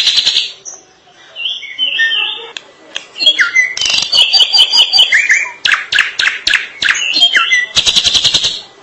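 Drongo singing a long, varied song: fast rattling trills and short whistled notes tumbling one after another, with a brief lull about a second in. A long run of rattles and whistles follows from about three and a half seconds in, closing with a dense rattle near the end.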